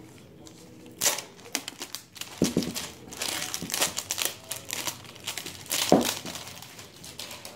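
Clear plastic wrap being peeled off a baseball bat's barrel and crinkling in the hands, in irregular crackles with a few sharper, louder snaps, the loudest about six seconds in.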